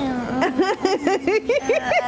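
Background music with a singing voice: a held note under short, rhythmically repeating melodic phrases.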